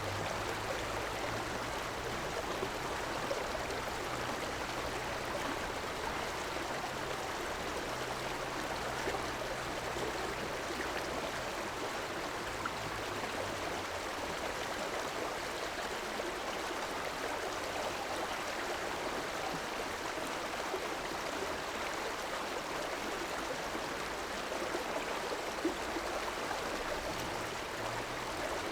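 River water rushing and gurgling steadily, an even, unbroken flow. A faint low hum sits underneath during roughly the first dozen seconds and again near the end.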